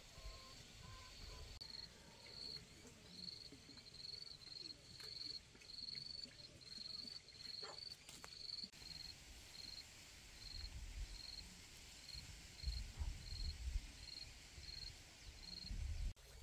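An insect chirping: a steady run of short, high chirps on one pitch, about two a second, growing shorter and sparser in the second half and stopping near the end. Low rumbles come and go underneath and are loudest in the second half.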